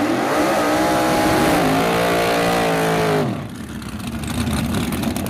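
Red Mazda RX-7 drag car's engine revved hard during a burnout. It climbs in pitch at the start, holds at high revs with one drop in pitch partway through, then falls and cuts off abruptly a little over three seconds in.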